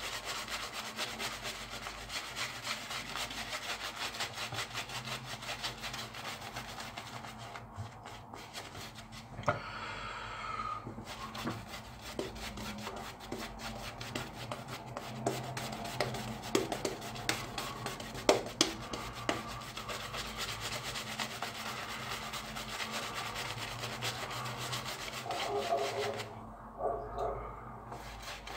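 Shaving brush scrubbing soap lather into a week-old beard stubble: a steady, bristly rubbing of many quick strokes, which pauses briefly twice.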